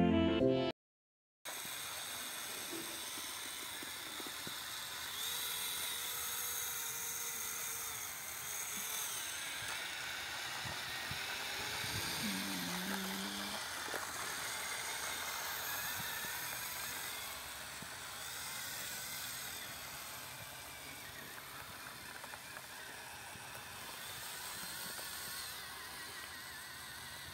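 Steady whir of a small electric motor driving a model tractor as it pulls a miniature seed drill through sand. It starts about a second and a half in, after music cuts off.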